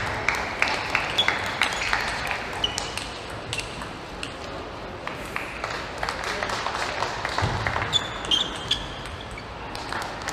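Celluloid-style table tennis ball clicking off bats and table in a fast rally, then occasional bounces after the point ends. A few short high squeaks, like shoes on the court floor, come in between.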